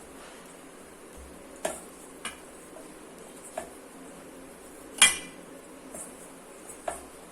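Dishware knocks and clinks as chapathi dough of wheat flour and water is mixed by hand in a vessel: about five separate knocks, the loudest about five seconds in, ringing briefly.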